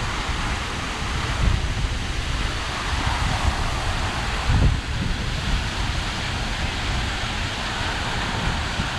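Waterfall rushing steadily, with wind buffeting the microphone in low gusts, strongest about a second and a half in and again past the middle.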